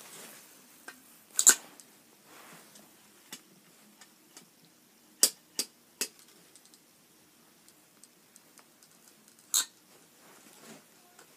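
Sharp plastic clacks of miniature toy trash bins being grabbed, lifted and set down with a toy grabber arm, with faint rustling between. There is a loud double clack about a second and a half in, three more in quick succession around the middle, and one near the end.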